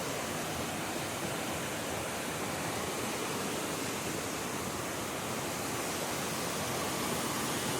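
Waterfall rushing: a steady, even roar of falling water with no change.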